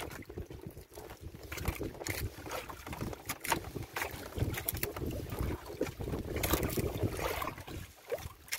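Water slapping and lapping against the side of a small wooden boat, with wind buffeting the microphone and scattered small knocks and clicks.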